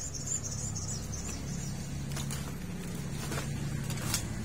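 Outdoor ambience: a steady low hum, with high chirping that stops about a second and a half in and a few sharp clicks near the end.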